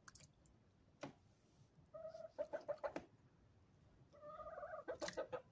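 A hen clucking quietly: a run of short clucks about two seconds in, then a longer drawn-out call a little after four seconds. A few sharp clicks come about a second in and around five seconds.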